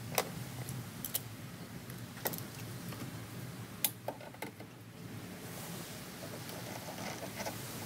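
Sharp plastic and metal clicks and clacks of hoses and fittings being handled in a car's engine bay while a vacuum line is reconnected, with the engine off. The clicks come in a handful, mostly in the first four seconds, and quieter small knocks follow, all over a steady low hum.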